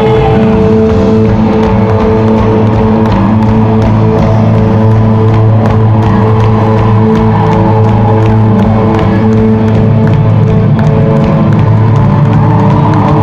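Live rock band playing, with a steady drum beat under a droning bass and held instrument tones, recorded very loud at a concert.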